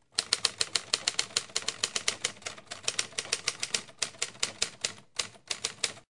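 Typewriter keystroke sound effect: rapid clicks, about seven a second, with a few short pauses. It accompanies on-screen text being typed out, and cuts off suddenly near the end.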